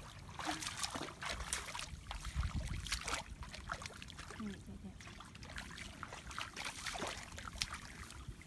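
Splashing and sloshing of bare feet and hands moving through shallow muddy water, in small irregular splashes.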